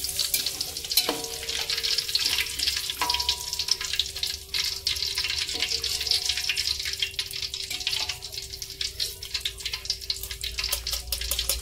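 Hot cooking oil in a wok sizzling and crackling steadily as puffed fried macaroni is scooped out with a wire strainer. A few ringing metal clinks of spatula against strainer and wok come about a second in and again about three seconds in.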